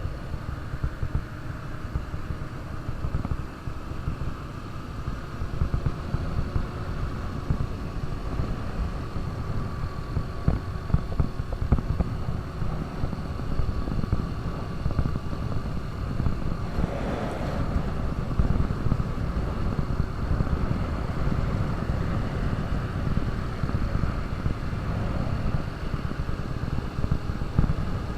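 KTM RC 200's single-cylinder four-stroke engine running steadily while the bike is ridden, heard onboard over a low rumble. A brief rush of noise rises about seventeen seconds in.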